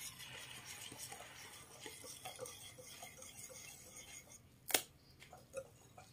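Wire whisk stirring a thin puto batter of flour, sugar and water in a ceramic bowl: faint swishing with light clinks of the wires on the bowl, and one sharper knock about three-quarters of the way through.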